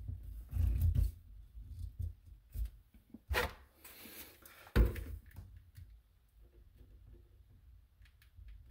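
Hands working plastic drain fittings under a sink. There is rubbing and low bumping as a black plastic 90° elbow is pushed and twisted onto its pipe, then scattered knocks and clicks of fittings and tools. The loudest is a sharp knock about five seconds in.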